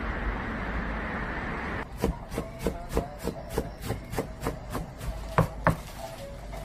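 A steady wash of street noise, then from about two seconds in a kitchen knife chopping shredded carrots on a cutting board in quick, even strokes, about three a second.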